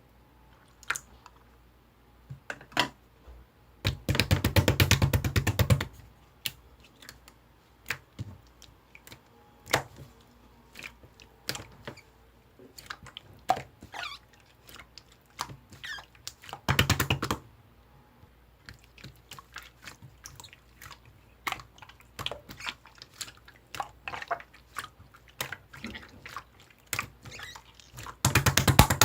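Slime being squished and poked by hand: scattered sticky clicks and pops, with three bursts of rapid crackling, the longest about four seconds in, another around the middle and one near the end.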